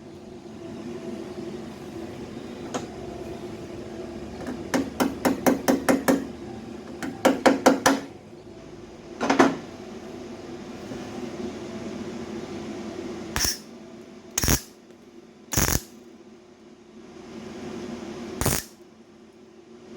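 A hammer striking sheet metal in two quick runs of taps, about six a second, then a single blow. Later come four short, sharp, separate bursts of noise over a faint steady hum.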